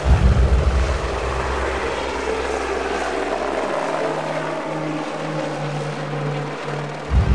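Single-engine AS350-type helicopter lifting off and climbing away overhead: steady rotor and turbine noise, whose deepest rumble drops away a little past halfway.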